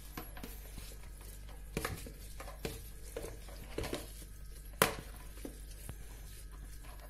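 A kitchen knife chopping through boiled glass noodles (funchoza) in a plastic bowl. It makes irregular soft knocks and clicks as the blade strikes the noodles and the bowl, with one sharper knock about two-thirds of the way through.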